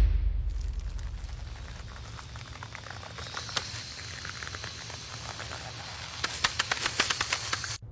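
A steady crackling hiss with scattered pops, like sizzling. The pops come thicker and louder about six seconds in, and the sound cuts off abruptly just before the end. A whoosh dies away at the very start.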